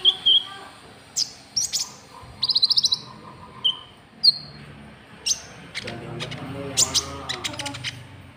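Short, sharp, high-pitched bird chirps and brief trills at irregular intervals, the calls of the konin bird used as a lure. Faint voices murmur in the background in the second half.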